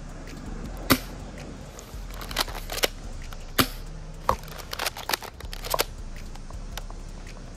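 Sharp clicks and snaps from a Double Eagle M56B spring airsoft shotgun being worked and fired, a dozen or so spread unevenly, the loudest about a second in.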